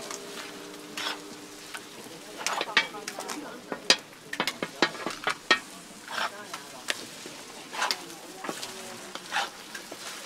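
Okonomiyaki sizzling as it fries on a hot iron griddle. Metal tools scrape and tap on the griddle plate with many sharp, irregular clicks.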